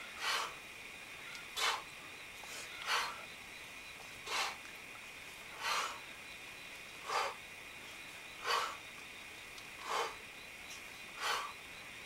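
Sharp, forceful exhales in time with kettlebell swings, one short breath about every second and a half, nine in all, keeping a steady rhythm.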